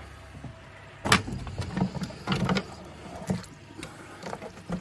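Plastic knocks and clicks as a submersible pond pump and its slotted strainer cage are handled and taken apart in a plastic tub. The knocks start about a second in and come irregularly.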